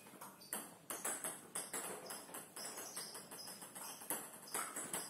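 Table tennis ball clicking back and forth off the paddles and the table in a fast rally: a quick, irregular run of sharp clicks, about two to three a second.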